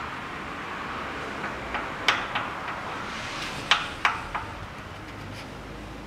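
Light metal clinks and knocks as a steel timing-belt sprocket is slid onto the crankshaft nose of a Toyota 3S-FE engine: a handful of sharp taps in the middle, the loudest a little past halfway.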